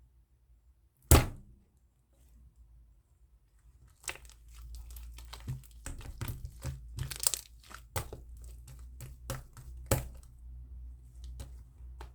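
Slime being handled by hand: one sharp slap or thunk about a second in, then, from about four seconds in, a run of crackling pops and clicks as it is pressed and stretched.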